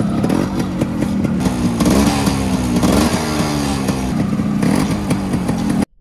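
Motorcycle engine running, its pitch rising and falling as it is revved, most clearly about two and three seconds in. It cuts off abruptly just before the end.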